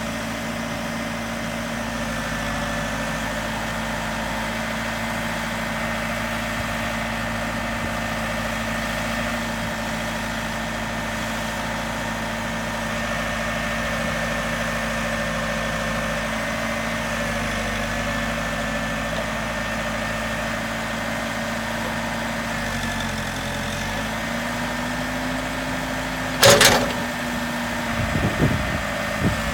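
Diesel engine of a Case 580 Super M backhoe idling steadily, its pitch rising a little a few seconds before the end. A single loud clank comes near the end, followed by a few lighter knocks.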